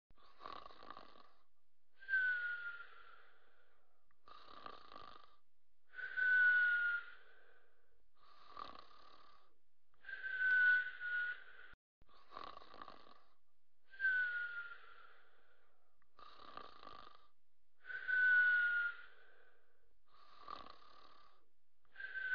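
Soft snoring in a steady, even cycle: a raspy snore, then a longer breath with a thin whistle that falls slightly in pitch, repeating about every four seconds.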